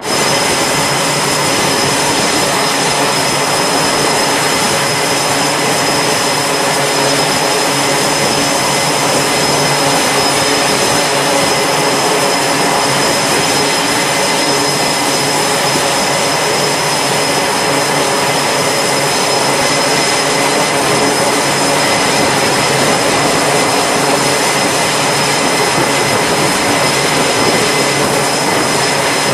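F/A-18 Super Hornet jet engines running steadily: a loud, constant rushing noise with a thin high whine over it that neither rises nor falls. It cuts in suddenly at the start.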